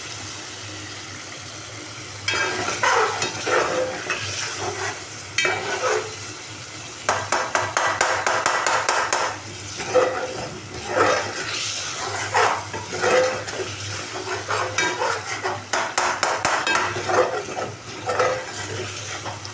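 Chicken frying in oil and yogurt masala in a metal pot (the bhuna stage) sizzles, while a metal spatula stirs and scrapes against the pot in quick, repeated strokes.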